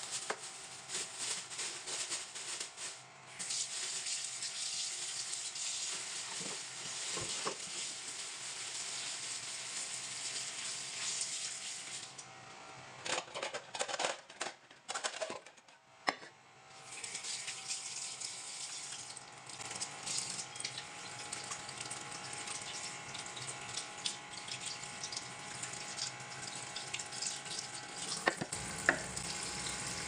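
Kitchen tap running into a sink as a steady hiss, with handling noise. The water stops for a few seconds around the middle, when a few sharp knocks and clatters are heard, then runs again.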